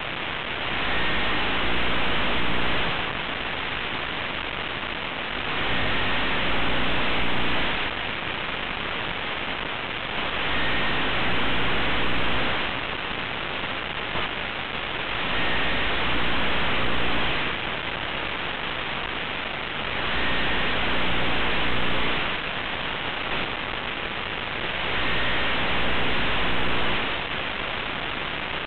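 Static-like hiss that swells and fades about every five seconds, with a faint low hum underneath and a short high beep in each swell.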